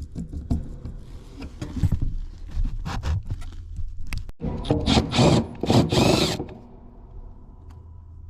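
Knocks and clicks of tools and metal parts as the heat kit's contactor is taken off its panel, then a loud rasping noise of about a second and a half, starting a little under five seconds in. A steady low hum is left once it stops.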